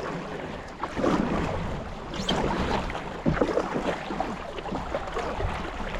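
River water splashing and rushing around a boat on the move, with wind buffeting the microphone as a low rumble.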